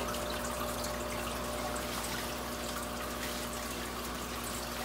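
Water running from a drip-acclimation tube into a glass vase as a steady trickling stream, far too fast to be drips. A steady low hum lies underneath.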